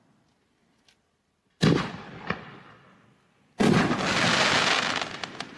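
A consumer reloadable artillery shell firework: a sharp thump as the shell is launched from its mortar tube, then about two seconds later a loud boom as it bursts, followed by about a second and a half of dense crackling hiss from the burning stars.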